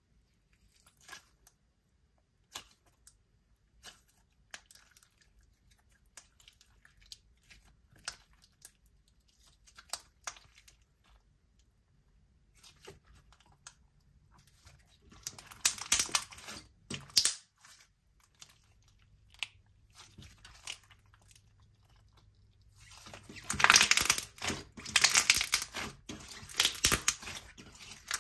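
Hands squishing and stretching a clear jelly cube slime: scattered small pops and clicks at first, then louder runs of crisp crackling bubble pops about halfway through and again near the end.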